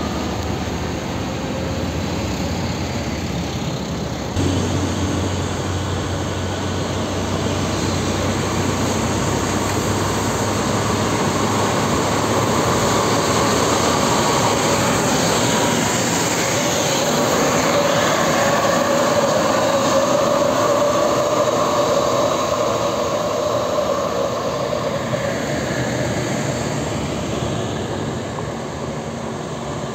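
Heavy diesel trucks passing close one after another on an uphill grade, engines pulling under load over steady tyre noise. A Nissan Diesel tractor unit hauling a container is among them; the noise swells toward the middle and fades near the end.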